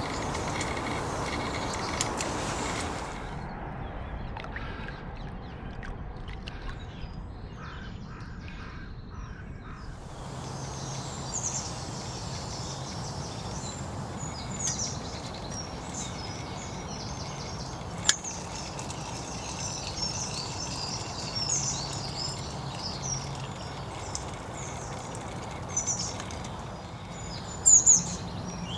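Wild birds singing and chirping, many short high calls over a steady rushing outdoor background. There is one sharp click partway through and a couple of loud knocks near the end.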